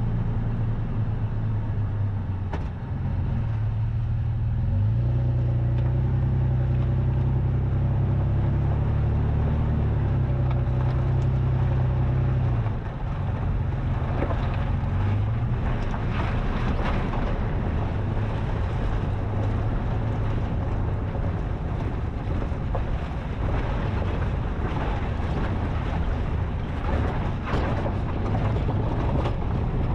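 Toyota FJ Cruiser's V6 engine pulling at low speed over a rough dirt trail. Its note rises about five seconds in and drops back near thirteen seconds. Wind on the microphone and scattered knocks and crunches from the rough track come in during the second half.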